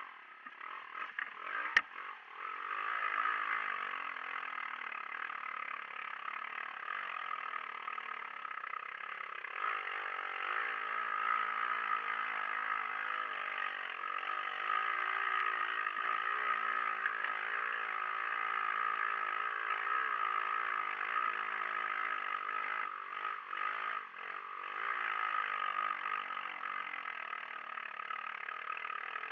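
Kartcross buggy's engine running and revving up and down as it drives through shallow water and mud, heard thin with almost no bass from the onboard camera. A single sharp knock about two seconds in.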